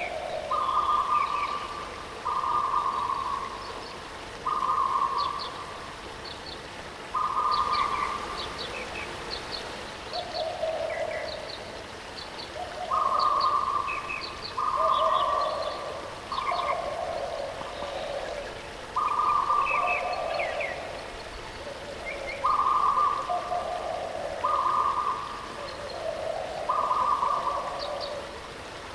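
Birds calling over steady rushing water: repeated buzzy calls about a second long at two pitches, a higher and a lower, alternating every second or two, with short high chirps in between.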